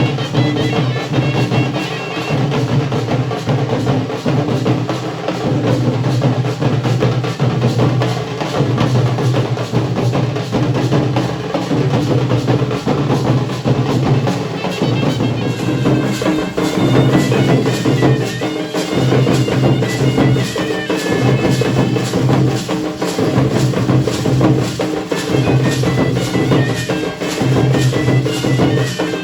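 Dhol and nagada drums played in a fast, dense rhythm, with a high wavering melody line from a wind instrument at the start and again from about halfway through.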